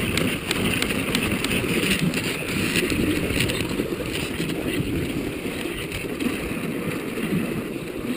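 Dog sled runners sliding over a packed snow trail at a steady pace, a continuous rushing, scraping hiss.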